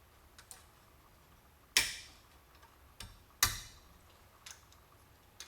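Hand tools clacking against a trim stud clip and a scrap of car-door sheet metal while the clip is forced on. There are light clicks, then two sharp metallic clacks about a second and a half apart, each with a brief ringing tail.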